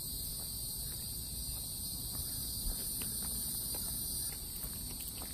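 Steady, high-pitched chorus of insects in summer woodland, with faint irregular footsteps.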